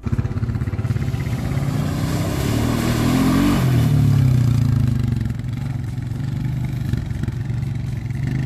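Small off-road vehicle engine running, starting abruptly. It climbs in pitch and gets louder about two to four seconds in, then eases back to a steady run.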